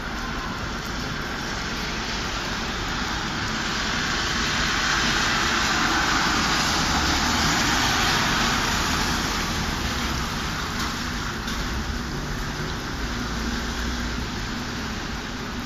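City street traffic on a wet road: a steady hiss over a low rumble, swelling to a peak midway and fading again as a vehicle's tyres pass over the slush-wet asphalt.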